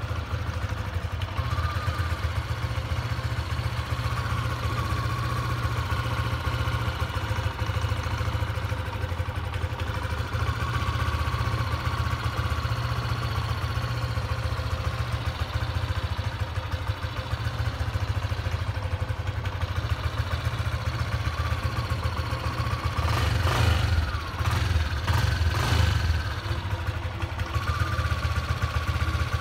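Yamaha NVX 155 scooter's single-cylinder engine idling steadily after a cold start, its mechanical engine noise louder than its exhaust. It gets louder for a few seconds near the end.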